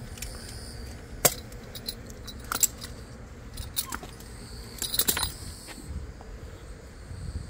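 Sharp metallic clinks and light knocks, scattered about a second apart with a quick cluster about five seconds in, from a ratchet tie-down strap's metal buckle and wooden beehive boxes being handled.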